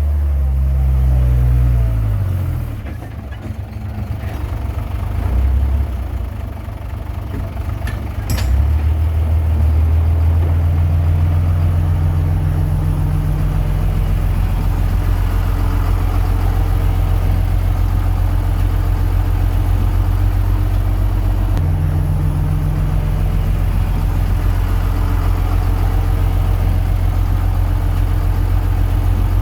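Heavy diesel engine running. Its speed falls and its level dips over the first few seconds, there is a sharp click about eight seconds in, and then it runs steadily at one speed.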